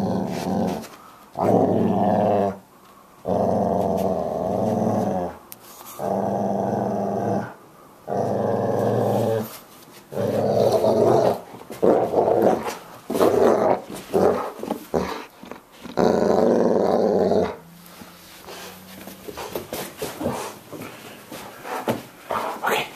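Dog growling during play: a string of about ten drawn-out growls, each one to two seconds long, that stop about three-quarters of the way through, leaving only faint short clicks.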